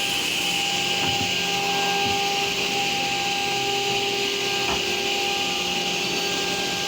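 CNC router machinery running steadily: a constant hiss with an even whine, with a few faint knocks.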